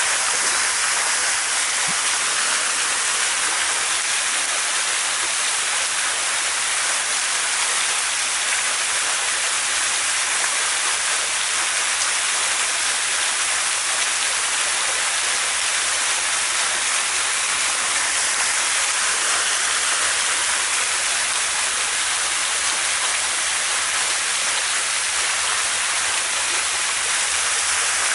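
Small waterfall pouring into a still cove: a steady, unbroken rushing hiss of falling water.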